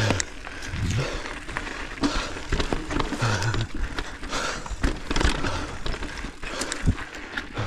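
Mountain bike rolling over rocky dirt singletrack: tyres crunching on dirt and stones, with many short knocks and rattles from the bike jolting over rocks.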